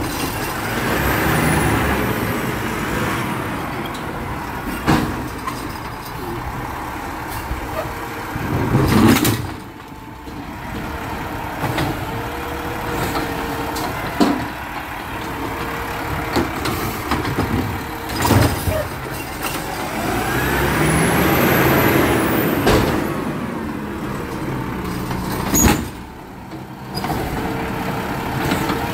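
Garbage truck engine running, revving up and back down twice, once near the start and again about twenty seconds in. Several sudden bangs are heard in between.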